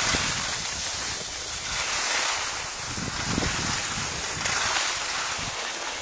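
Rushing noise of a downhill ski run: wind buffeting the microphone and skis sliding on snow, swelling and easing every second or so.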